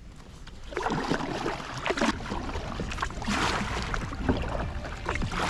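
Kayak paddle strokes dipping and splashing in the water, a surge of splashing about every second.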